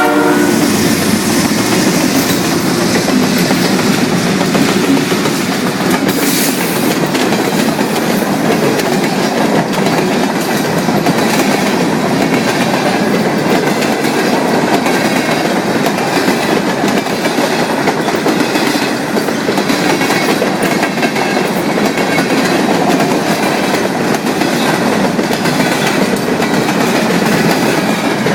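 CN freight train rolling past at close range, its wheels on the rails making a loud, steady rush. The locomotive horn's last blast cuts off just as it begins.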